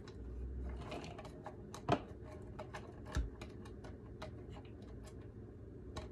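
Light, irregular clicks and taps of kitchen utensils and containers being handled on a countertop, about three or four a second, with a louder knock about two seconds in and a dull thud about a second later.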